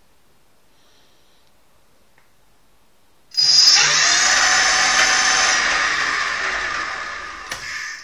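Electric scooter's brushless (BLDC) motor, run from a 144-volt controller, spinning up suddenly about three seconds in with a high whine made of several tones. It holds steady, then slowly fades and stops near the end.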